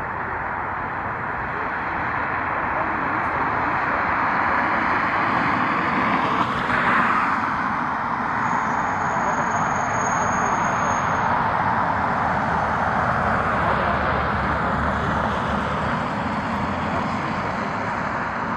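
Jet airliner engine noise, a steady rush that swells to a peak about seven seconds in and then eases, with a thin high whine for a few seconds just after the peak.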